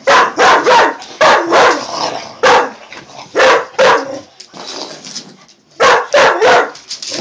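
Clumber spaniel barking at another dog in rough play: a run of short, loud barks in quick clusters, with a brief lull about two-thirds of the way through.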